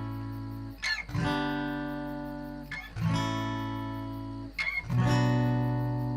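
Acoustic guitar music: strummed chords, each left to ring for about two seconds before the next strum.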